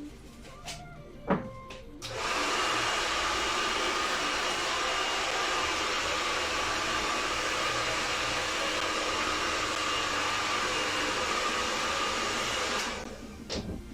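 Small electric air blower running steadily for about eleven seconds: a level rush of air with a faint whine from its motor, starting about two seconds in and stopping near the end. In laptop maintenance like this it is the blowing of dust out of the machine. A sharp click comes just before it starts.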